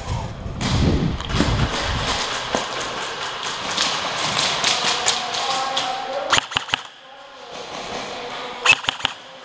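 Thuds and shuffling of gear and footsteps for the first two seconds, then an AKS-74U-style airsoft electric rifle firing two short bursts of four or five rapid shots, about two seconds apart, the second burst the loudest.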